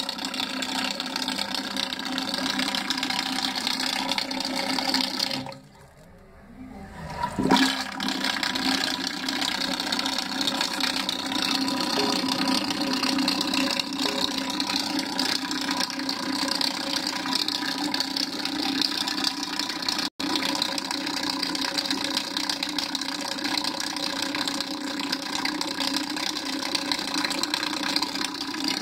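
Water running through a close-coupled toilet cistern as it flushes and refills: a steady hissing rush with a faint steady tone from the fill valve. It drops away for about two seconds around six seconds in, then comes back with a sudden surge.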